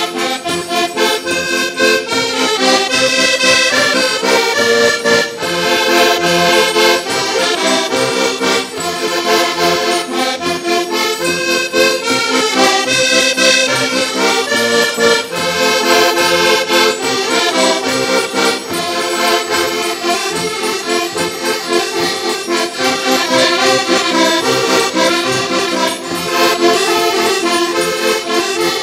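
A group of Portuguese concertinas (diatonic button accordions) playing a lively traditional folk tune together.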